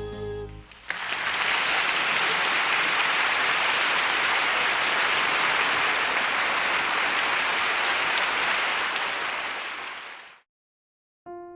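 Meat sizzling on a hot grill: a dense, steady hiss that fades out near the end.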